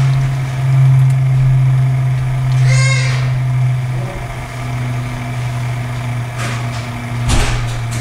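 Nespresso Aeroccino 3 milk frother running with a steady low hum as it heats and froths cream. A short high call comes about three seconds in, and a few clicks and a knock come near the end.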